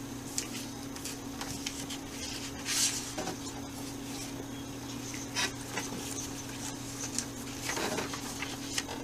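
Studio room tone: a steady low electrical hum under scattered paper rustling and small clicks, with one louder rustle about three seconds in.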